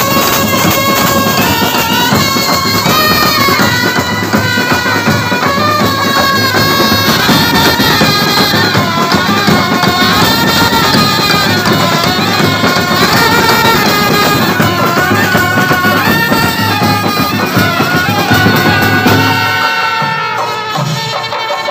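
Brass band playing a melody on wind instruments over drums. The tune stops just before the end, leaving the drums beating on.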